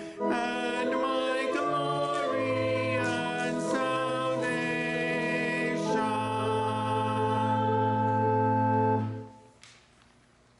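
Organ with voices singing the closing line of a hymn, ending on a long held final chord that cuts off about nine seconds in.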